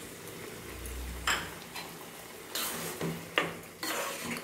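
A spoon stirring thick prawn curry in a nonstick wok, with a couple of scraping strokes along the pan and two sharp clinks of the spoon on the pan, about a second in and again past the middle.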